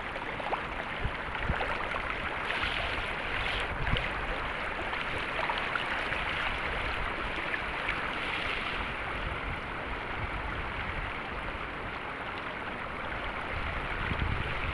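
Flowing water rushing steadily, a low rumble coming in near the end.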